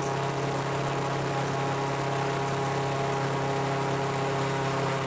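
Airboat's engine and air propeller running at a steady speed: one constant, even drone.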